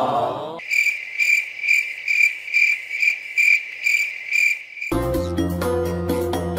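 A cricket chirping in an even pulse, about two chirps a second, which cuts off suddenly about five seconds in as music starts.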